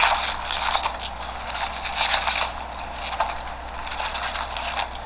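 Crinkling, rustling and crackling of packaging being handled, with scattered sharp clicks: a box of wrapped baseball card packs being opened and its packs taken out.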